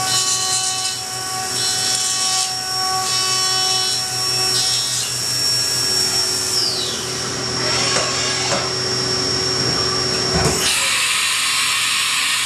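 CNC milling machine cutting a metal workpiece under coolant spray: a steady machining whine with several held tones. A falling whine comes about seven seconds in, then a low thump and a loud hiss for the last two seconds.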